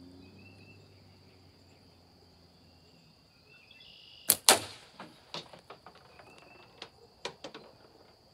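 Slingshot shot: the bands are let go with a sharp snap and the 5/16 steel ball strikes something hard a moment later. Several lighter clicks follow as the ball bounces back. A steady high insect drone runs underneath.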